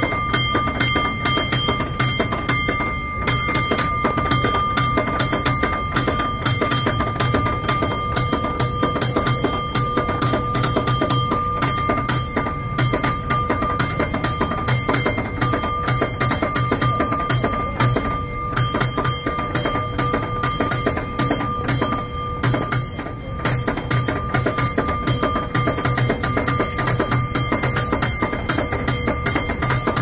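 San Francisco cable car bell, mounted in the car's roof and rung by pulling its cord, ringing in rapid rhythmic strokes. Its clear tones keep ringing between strikes.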